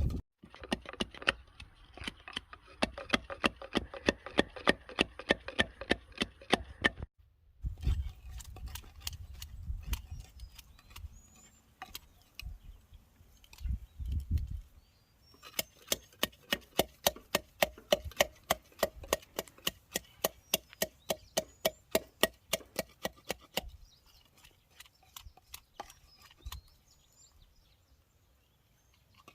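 Rhythmic chopping with a knife on a wooden board, about four to five strokes a second, in three runs with short breaks, growing sparse and faint near the end.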